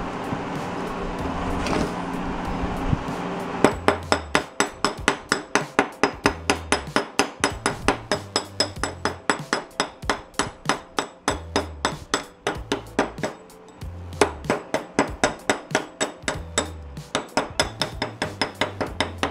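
A chipping hammer rapidly striking a fresh weld bead on a steel plate to knock off the slag, each blow a sharp ringing clink. The blows begin a few seconds in and come about four a second, with a brief pause about two-thirds of the way through.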